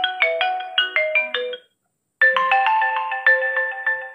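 Vivo Z1 Pro smartphone playing marimba-like ringtones through its loudspeaker. A quick run of bell-like notes stops about a second and a half in, and after a short gap a new tune starts.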